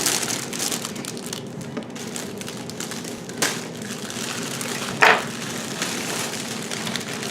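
Packaging crinkling and crackling as items are handled and unwrapped from a gift basket, with a sharp crack about three and a half seconds in and a louder short crackle about five seconds in.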